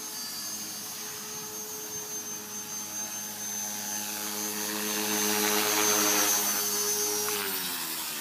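Align T-Rex 450 Pro V2 electric RC helicopter in flight: a steady high whine from its motor and gears with a lower rotor hum, growing louder as it flies in close. Near the end the pitch drops as it comes down onto the grass and the rotor slows.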